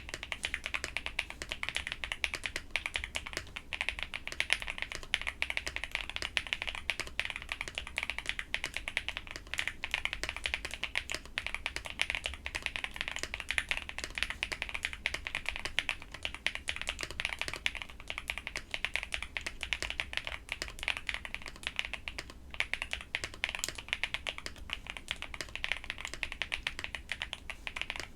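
Fast, continuous typing on a Hiexa V80 custom mechanical keyboard with Kailh Snow Cocoa switches and doubleshot PBT Cherry-profile keycaps, in a foam- and IXPE-modded case: a steady stream of key clacks with a short pause about 22 seconds in.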